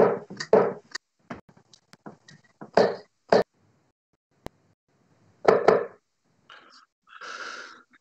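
Sharp knocks and thuds at irregular intervals, darts striking a bristle dartboard among them, with a short rustle near the end.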